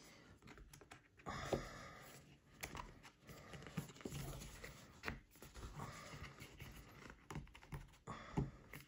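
Thin cardboard game inserts being handled and pushed into slots: scattered faint taps, scrapes and rustles.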